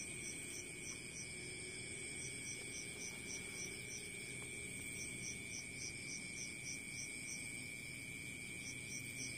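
Crickets chirping, a high pulsed chirp about four times a second in runs with short breaks, over a steady high-pitched ring and a faint low hum.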